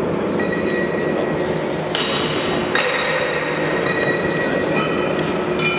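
Iron barbell weight plates clinking against each other and the bar as the load is changed, each knock leaving a high metallic ring. There are three knocks: about two seconds in, again shortly after, and near the end, over a steady murmur of the hall.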